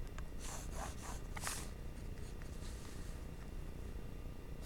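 Graphite pencil strokes scratching on paper: a few quick strokes in the first two seconds, the last of them the loudest, then fainter ones.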